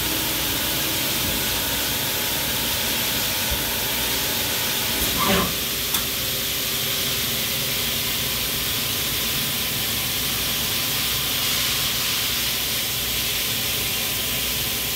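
Steady hiss with a faint hum, the background noise of an industrial shop, with a brief pitched sound about five seconds in and a click just after.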